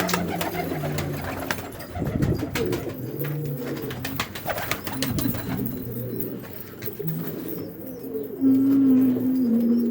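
Several domestic pigeons cooing, their low notes overlapping, with one louder coo near the end, and scattered light clicks.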